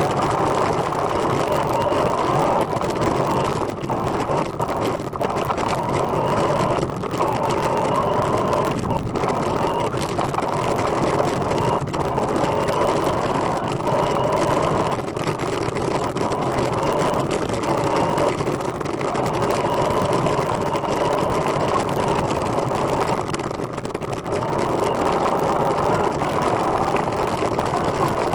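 Steady rolling noise of a recumbent trike on the move: tyre and drivetrain noise, with a faint steady whine above it.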